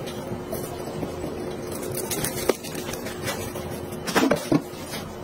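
Knife cutting raw chicken on a plastic cutting board, with a few sharp knocks of the blade on the board: one about halfway through and a quick cluster near the end. A steady hum runs underneath.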